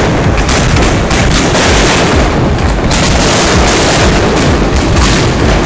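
Fireworks display: a loud, continuous barrage of aerial shells bursting, rapid overlapping bangs and booms with no pause.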